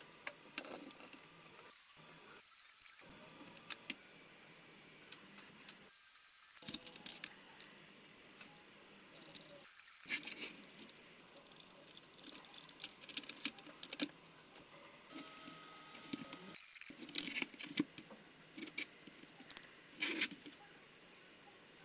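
Faint handling noises: scattered light clicks, clinks and rustles of small hard objects being moved about, broken by several brief cuts to silence.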